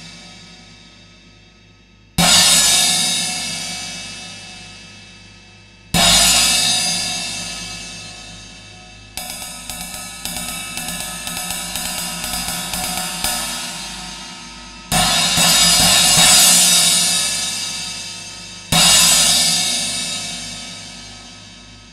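Paiste 2000 Sound Reflections 20-inch Mellow China cymbal struck with a drumstick. Single crashes come about two and six seconds in, each left to ring and fade. Then come about six seconds of quick repeated strokes, and then two more crashes that ring and die away.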